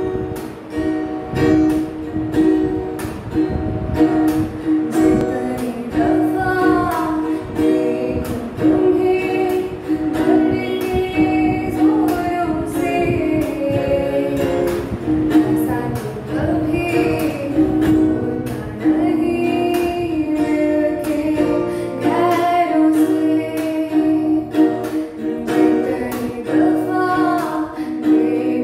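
A 15-year-old girl singing a melodic song in a gliding, ornamented style over instrumental accompaniment with a steady held drone and plucked or tapped notes; her voice comes in about six seconds in.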